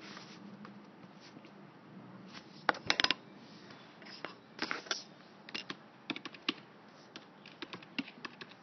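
Irregular light clicks and taps, like keys being pressed, coming in small clusters from about two and a half seconds in, over a faint low hum.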